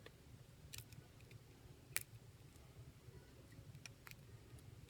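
Near silence with a few faint small clicks from small phone parts and tools being handled during a screen repair, one sharper click about two seconds in, over a low steady hum.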